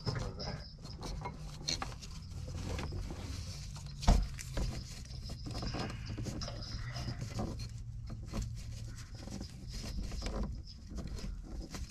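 Gloved hands working a corrugated fuel filler hose onto its fitting under a car: scattered light clicks and rubbing, with one sharper knock about four seconds in, over a faint steady low hum.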